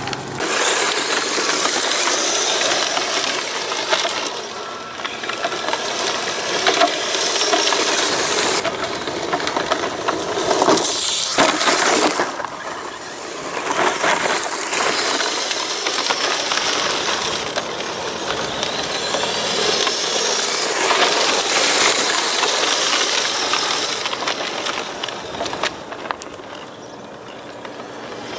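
Exceed RC Ace Tiger radio-controlled rally car driving on loose gravel: tyres crunching and spraying stones, with a high motor and gear whine that rises as it speeds up. The sound swells and fades several times as the car comes near and moves away.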